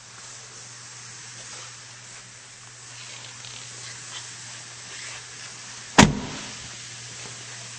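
A Jeep Wrangler door shutting once with a sharp thud about six seconds in, over a steady low hum and hiss.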